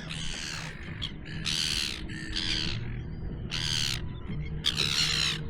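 A bird calling five times, each a harsh, drawn-out call about half a second long, over a steady low hum.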